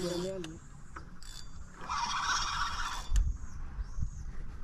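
Fishing reel being cranked in spells, its gears whirring, as a hooked fish is reeled in on a bent rod. Two knocks come a little past halfway.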